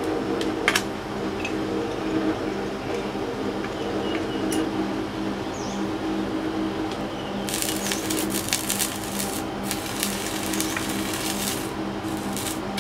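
Steady electrical hum of an electric melting furnace, with a few clicks early on and a dense stretch of crackling lasting about five seconds in the second half.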